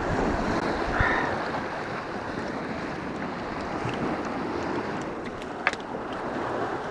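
Sea waves washing and foaming over low rocks: a steady rush of surf, with one sharp click about a second before the end.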